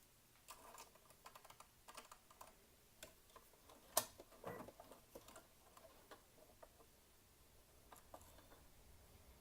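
Small irregular clicks and taps from handling a sewing machine bobbin and bobbin case, with one sharper click about four seconds in.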